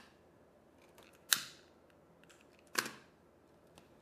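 Two sharp clicks about a second and a half apart, with a few faint ticks between, from hands handling wires and a small relay module.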